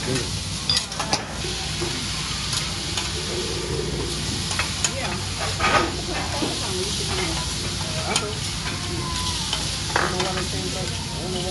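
Chicken breasts and scallops sizzling steadily as they sear on a hot flat-top hibachi griddle, with a few scattered sharp taps.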